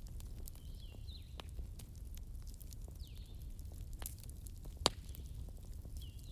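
Wood fire crackling: a steady low rumble with scattered sharp ticks and one loud pop a little under five seconds in. Short falling high-pitched chirps come every second or two.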